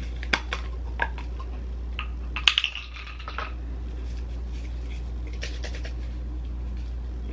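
Small clicks and light clinks of makeup containers and tools being handled, with the loudest quick cluster about two and a half seconds in, over a steady low hum.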